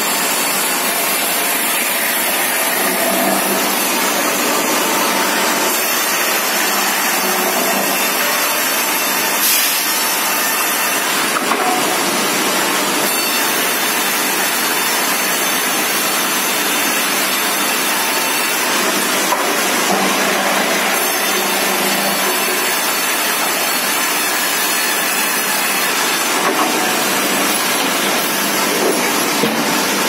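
Sawmill head saw cutting a log into cants, a loud steady rush of sawing with the mill machinery running, the sound shifting every several seconds.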